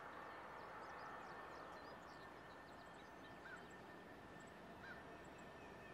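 Near silence with faint birds chirping: a quick run of high chirps, then two short calls, over a low steady hiss.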